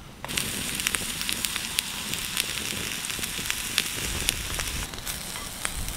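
Chopped onion sizzling in a steel frying pan over a wood campfire, with the fire crackling and popping. The sizzle comes in suddenly a moment in and then holds steady.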